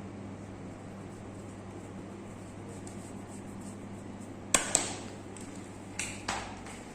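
Four sharp cracks during a hands-on massage, coming in two quick pairs over the second half, above a steady low hum.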